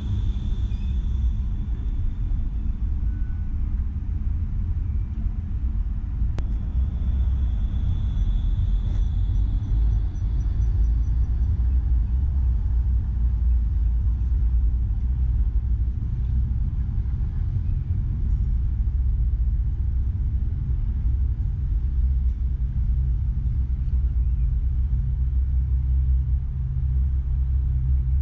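PESA Twist II 2010N tram running, heard from the driver's cab as a steady low rumble. A faint high-pitched whine comes in briefly at the start and again from about eight to eleven seconds in.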